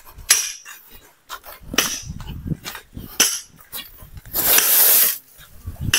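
Steel pickaxes and hoes striking rocky soil and stone: several sharp metallic clinks and thuds, with a longer noisy scrape of earth about four and a half seconds in.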